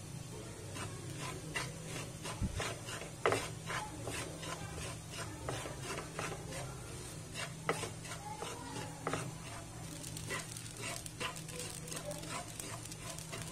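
Spatula stirring and scraping poppy seeds being dry-roasted in a nonstick frying pan: irregular light scrapes and rustles of seed on pan, over a low steady hum.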